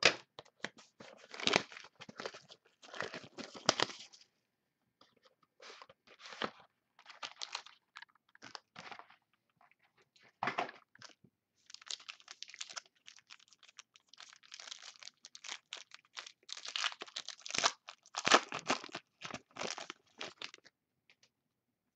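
A sealed trading-card box and its single pack being opened by hand: tearing and crinkling of the wrapper and cardboard in irregular bursts, stopping about a second before the end.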